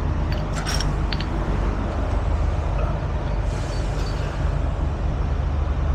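Heavy diesel truck engine idling steadily, with a few short sharp clicks in the first second or so.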